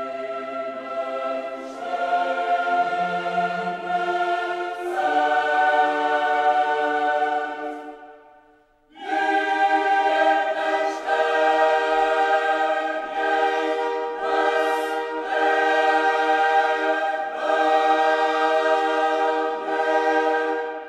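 Background music: a choir singing slow, held chords. It breaks off about eight seconds in before the next phrase begins.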